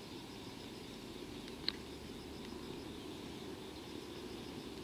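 Faint steady low rumble of trackside ambience, with one sharp click about a second and a half in.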